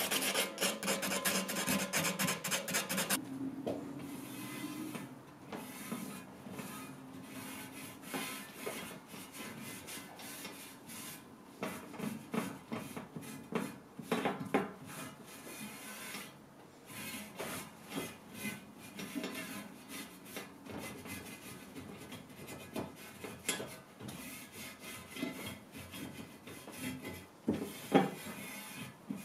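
Sandpaper rubbed by hand over a carved mirror frame in quick, rhythmic back-and-forth strokes; about three seconds in this gives way to quieter, uneven rubbing as a cloth wipes the sanded frame down.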